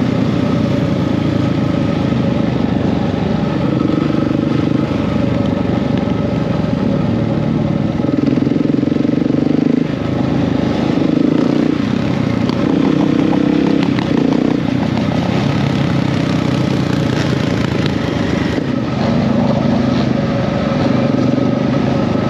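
Dirt-bike engines running under way at road speed, the engine note stepping up and down every few seconds with gear changes and throttle, with a brief drop about ten seconds in.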